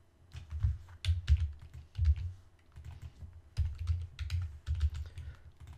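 Typing on a computer keyboard: irregular runs of quick keystrokes, each a sharp click with a dull knock, with a brief lull near the middle.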